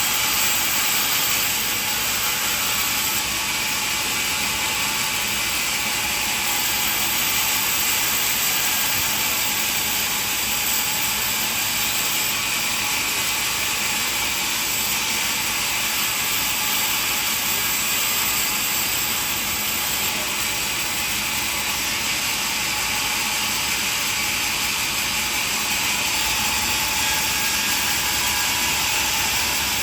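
Sawmill machinery running: a steady mechanical clatter with a high hiss that holds the same level throughout.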